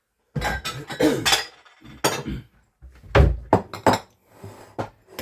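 Kitchen dishes clattering: bowls, including a glass dish, knocked and set down on a worktop, with a string of separate knocks and clinks, the heaviest about three seconds in.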